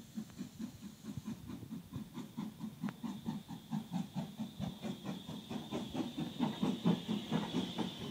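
GWR Manor class 4-6-0 steam locomotive running through a station, its exhaust chuffing in a quick, even rhythm that grows louder as it draws near and passes, with a high steady note building near the end.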